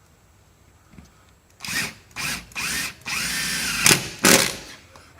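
Power drill driving a screw into the bus's fiberglass body, run in several short trigger bursts and then one longer steady run, starting about a second and a half in.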